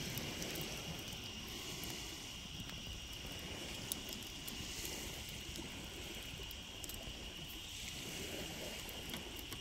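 Night-time lakeshore ambience: a steady wash of wind and water with a continuous high insect trill. A few faint crackles from a wood fire burning in a fire pit are heard.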